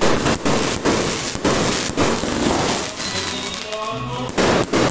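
Fireworks going off in a rapid string of bangs, about three a second, over music. After about three seconds there is a short lull where the music is heard alone, then a few more bangs near the end.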